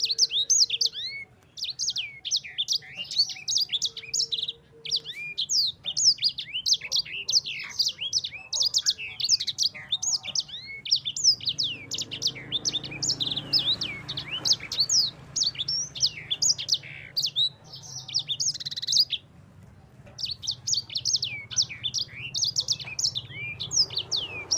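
A sanger (small Indonesian cage-bird finch) singing a fast, continuous song of high, rapid chirping notes, with a short break about nineteen seconds in.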